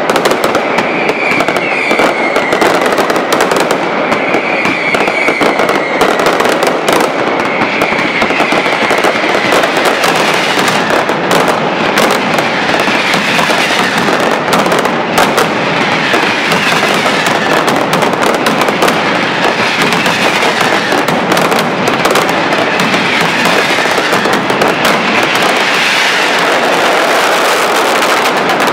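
Mascletà firecracker barrage: a dense, unbroken rattle of masclets and firecrackers going off in rapid succession. Repeated falling whistles ride over it in the first half.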